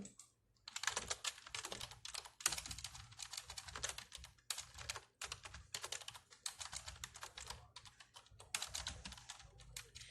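Typing on a computer keyboard: a fast, irregular run of key clicks starting about a second in.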